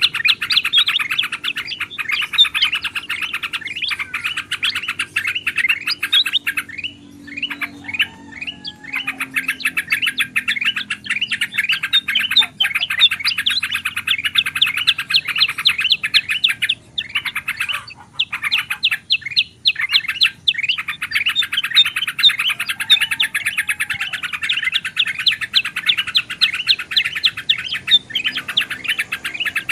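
Bulbuls calling: a dense, busy chatter of rapid notes from the yellow-vented bulbul (trucukan) mixed with golden bulbul calls (kutilang emas and kutilang sutra), broken by a few short pauses.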